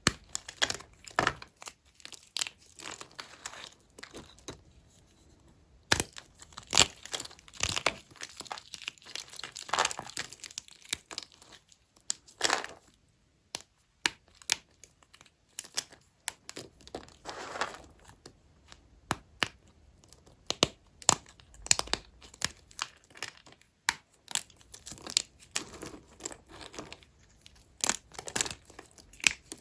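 Knife cutting into dry vintage hotel soap bars: irregular crisp crackles and short scraping strokes as the blade goes through the hard, brittle soap.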